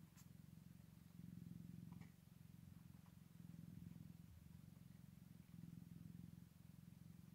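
Scottish Fold mother cat purring while nursing her newborn kittens. The purr is low and steady and swells and eases in turns about every second.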